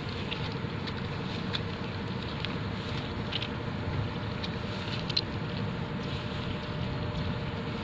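Wind buffeting the microphone in an open field, with a steady faint hum underneath and scattered faint ticks.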